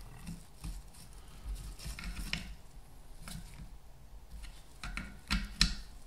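Hand screwdriver turning small screws into the rear of a Valeo car alternator, with scattered light metal clicks and scrapes; the sharpest clicks come near the end.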